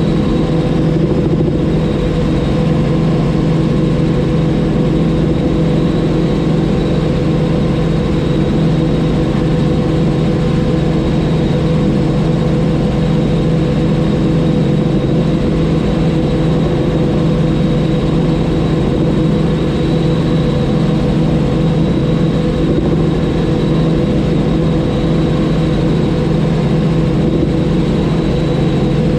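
Robinson R44 helicopter in steady flight: the even drone of its six-cylinder piston engine and rotors, holding one unchanging pitch.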